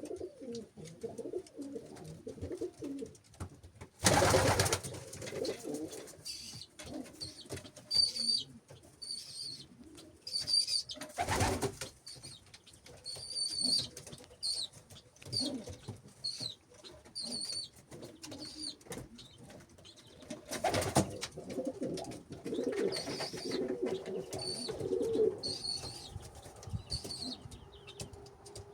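Racing pigeons cooing continuously, with repeated high chirps through the middle and three short, loud bursts that stand out above the cooing.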